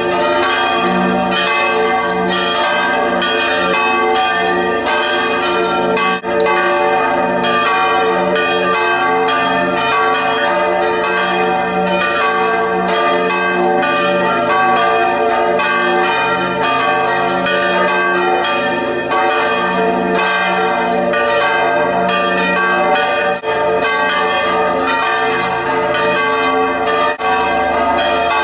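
Church bells pealing continuously, struck in quick succession, so that many ringing tones overlap without a break.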